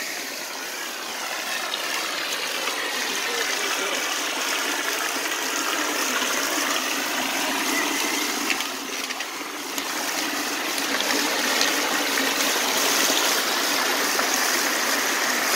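Rain-swollen, muddy creek rushing and splashing over rock ledges close to the microphone: a steady wash of running water that dips briefly about two-thirds of the way through.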